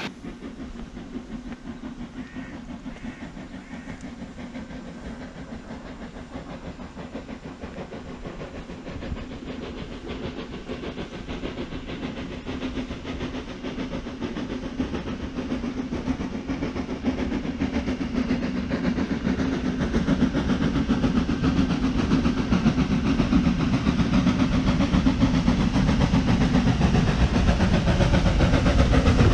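Hunslet steam locomotive hauling a train uphill, growing steadily louder as it approaches.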